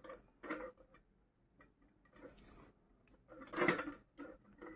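Faint handling sounds of yarn being sewn through the holes of a metal purse frame: a few light clicks and rustles, the loudest a short rustle a little past halfway.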